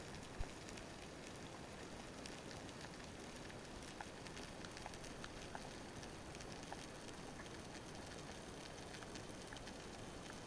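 Underwater ambience: a steady low hiss sprinkled with many faint crackling clicks, and one sharp thump about half a second in.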